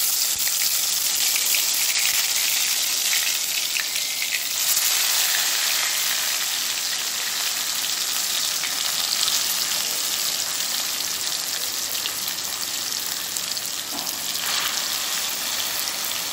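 Marinated katla fish pieces frying in hot mustard oil in a kadai: a steady, dense sizzle and crackle of spitting oil.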